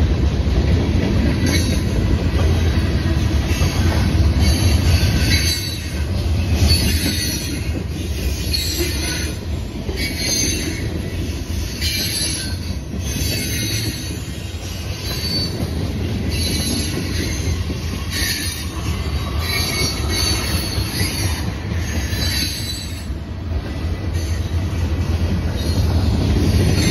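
Freight cars of a long Norfolk Southern manifest train rolling past with a steady low rumble. High-pitched wheel squeals come and go about once a second.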